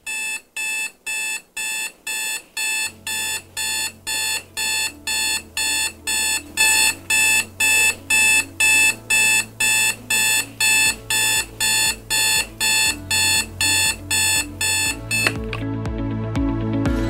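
Electronic alarm beeping, about two and a half sharp beeps a second, over a low background music bed; the beeping stops about fifteen seconds in and the music carries on.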